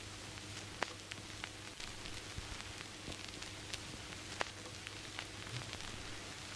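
Old-film surface noise: a steady hiss over a low hum, scattered with irregular clicks and pops.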